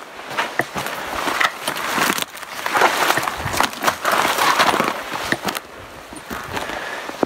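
A hiker's footsteps crunching on a rocky trail, with gear and clothing rustling close to the microphone: an uneven run of crunches and scrapes that eases off near the end.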